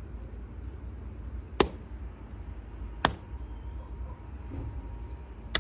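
Three sharp clicks over a low steady rumble; the first two are about a second and a half apart.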